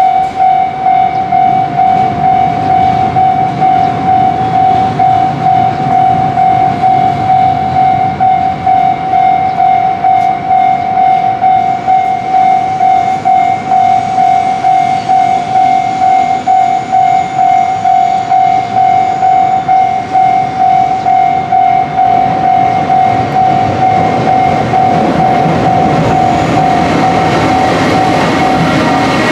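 Japanese railway level-crossing alarm ringing, one steady high tone pulsing about two and a half times a second, over the rumble and clatter of a passing train. About 22 seconds in the pulsing evens out and the train noise grows louder.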